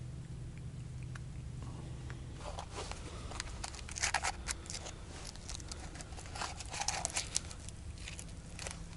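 Aluminium foil wrapping crinkling in the hands, in two spells of crackling: from about two and a half seconds in to about five, and again from about six to seven and a half, with a last crinkle near the end.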